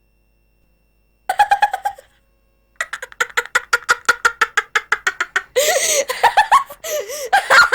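A child laughing: a short burst of giggles about a second in, then a long run of quick, high-pitched laughs, several a second. Near the end the laughs turn to squeals that swoop up and down.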